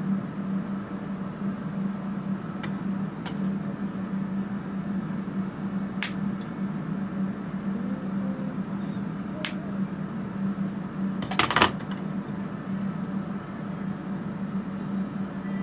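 Workshop fume-extraction fans running with a steady hum. Over it come a few sharp clicks of small metal tools being handled, and a brief clatter a little past the middle.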